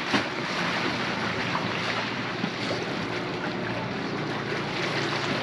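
Steady rush of wind and sea water past a sailing catamaran under way on the open ocean.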